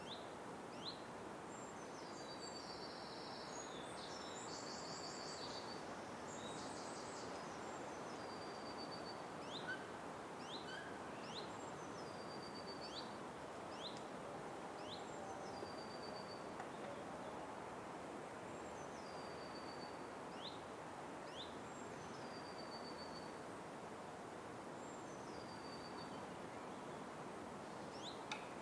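Night forest ambience: a steady faint hiss with a high two-note call repeated every three to four seconds and short falling chirps between, plus a brief burst of chattering about three seconds in.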